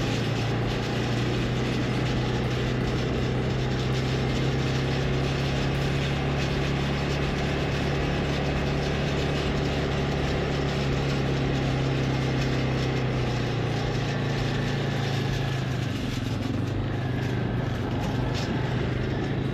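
Jeep engine running steadily with an even low hum, its note shifting slightly about two-thirds of the way through.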